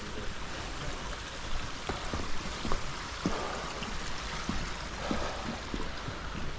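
Footsteps on a hiking trail, as irregular short knocks over a steady rushing hiss.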